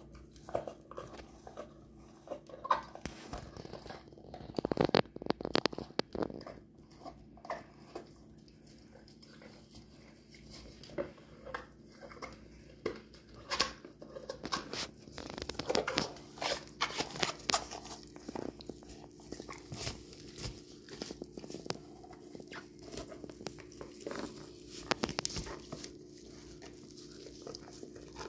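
A large dog chewing and biting a tennis ball: irregular wet crunches and clicks of teeth on the ball, coming in louder spells several times.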